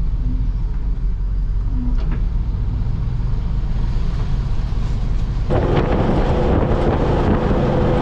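A bucket truck driving, with steady low engine and road rumble. About five and a half seconds in it grows louder and harsher.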